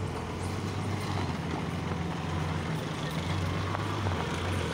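Toyota Land Cruiser 80-series engine running steadily under light load as the 4x4 crawls along a muddy dirt track, a low, even drone that swells slightly now and then.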